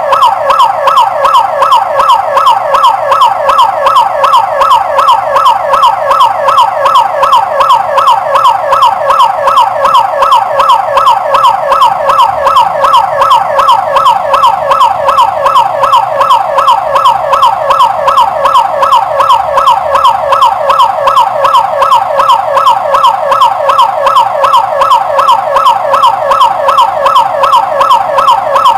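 Electronic business intruder alarm siren sounding loudly and continuously: a rapid, even run of falling pitch sweeps, several a second, repeating without a break.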